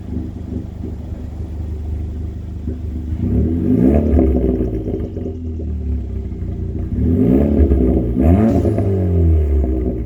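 2016 Ford Fiesta ST's 1.6-litre turbocharged four-cylinder running through an aftermarket cat-back exhaust. The engine is revved up and back down twice, about three seconds in and again about seven seconds in.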